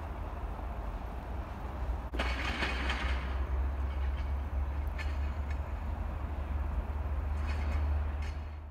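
Outdoor city ambience: a steady low rumble, with a brief hiss about two seconds in and a few faint clicks, fading out at the end.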